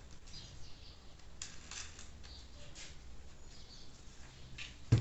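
Faint handling noises: a handful of light scrapes and clicks of small plastic parts being handled and fitted together, spread out over a low steady hum.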